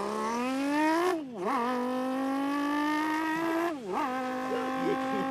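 A person imitating a racing car engine with their voice. The pitch rises as if revving up, then dips and climbs again twice, a bit over a second in and near four seconds in, like gear changes, holding a steady note in between.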